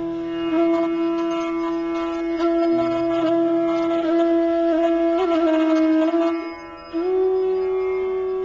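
Indian classical music: a woodwind instrument holds long sustained notes over a low drone. It wavers in an ornament about five seconds in, dips briefly, then steps up to a slightly higher held note about seven seconds in.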